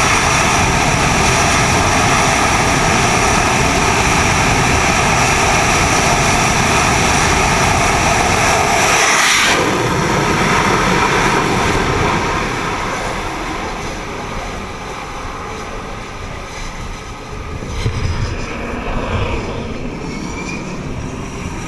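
F/A-18 jet engines running at full power on a carrier steam catapult, a loud steady jet noise. About nine seconds in there is a sudden rush as the catapult fires and the jet launches, and the jet noise then fades away.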